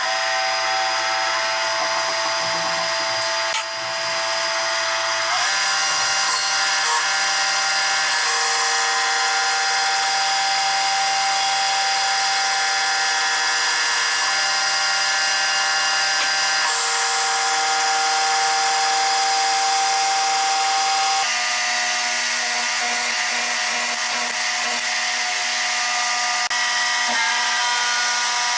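AC TIG welding arc on aluminium: a loud, steady electric buzz made of several fixed tones. It starts abruptly and shifts in pitch a couple of times.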